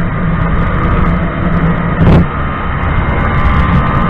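Motorcycle accelerating at high revs, heard from a helmet-mounted action camera: the engine runs under dense wind and road rush, with a brief louder gust about two seconds in.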